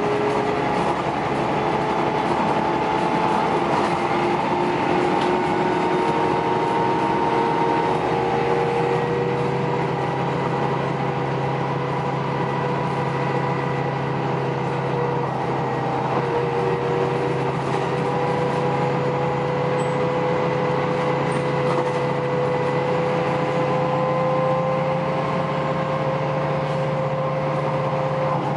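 Cabin sound of an articulated city bus driving along: a steady engine drone under a higher whine that drifts slowly up and down in pitch with road speed, over road noise.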